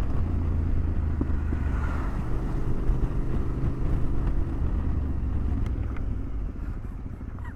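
Low, steady engine rumble with wind noise on the microphone, fading over the last couple of seconds.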